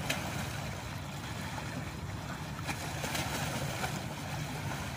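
Steady wind noise on the microphone and waves washing at the shore, with a low rumble underneath and a few faint clicks.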